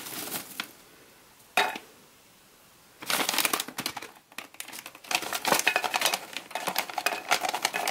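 A popcorn bag rustling as popped popcorn is poured into a small tin pail. There is one sharp click about a second and a half in, then dense crackling and rustling from about three seconds in as the popcorn tumbles into the tin.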